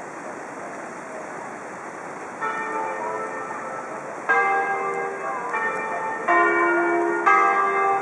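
Church bells ringing: after a couple of seconds of steady rushing background, bells of different pitches are struck one after another, about five strokes, each ringing on into the next.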